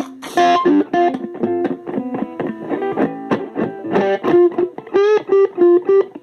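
Guitar played as a quick run of plucked single notes, about four to six a second, with a light distorted electric tone.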